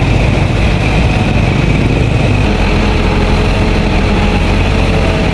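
An engine running steadily at low speed.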